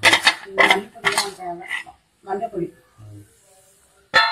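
A metal plate knocking and clinking against the rim of a pressure cooker as spice powder is tapped off it, a sharp knock roughly every half second. Near the end comes a loud metallic clang that keeps ringing.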